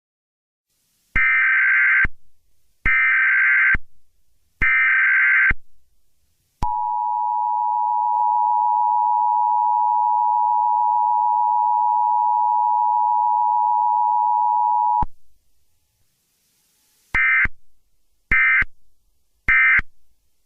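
Electronic beep tones: three beeps of about a second each, then one long steady lower tone for about eight seconds, then three shorter beeps near the end.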